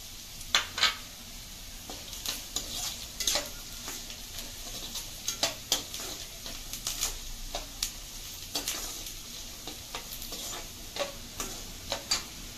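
A slotted metal ladle scraping and knocking irregularly against a kadai as diced vegetables are stirred, over a steady sizzle of the vegetables frying in oil.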